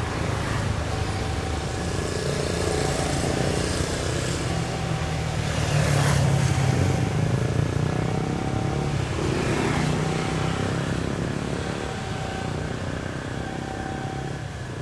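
Diesel engine of a KAI CC 206 (GE C20EMP) diesel-electric locomotive running under power as it moves slowly away from the platform. It is a deep, steady rumble that grows louder to a peak about six seconds in, then eases off towards the end.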